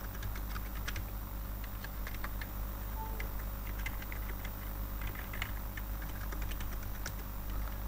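Computer keyboard keys being typed, an irregular run of light clicks, over a steady low hum.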